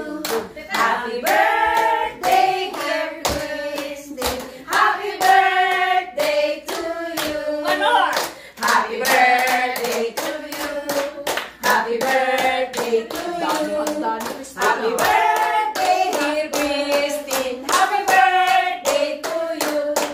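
A small group of women singing a song together, clapping their hands in steady time with the singing.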